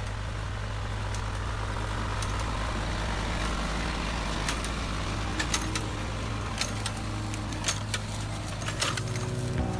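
Tractor diesel engine running steadily at a low, even pitch while pulling a sensor-arm inter-row hoe through the soil. From about halfway through, scattered sharp clicks and rattles cut in over the engine.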